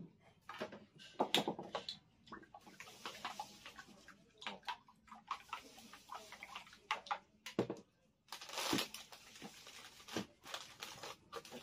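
Food being prepared by hand with dishes and utensils: a string of small clicks and knocks, with rustling stretches about three seconds in and, loudest, near nine seconds.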